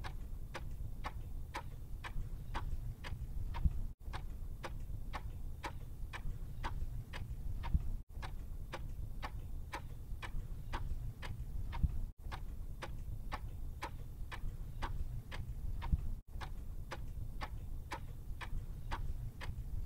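Clock-ticking sound effect: a steady tick, a few ticks a second, over a low rumble. It cuts out for an instant about every four seconds as the loop restarts.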